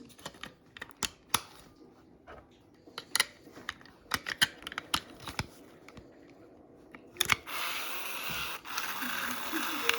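Sharp clicks, snaps and crinkles of toy packaging being opened and handled, then about seven seconds in a steady mechanical whirring hiss starts and keeps on.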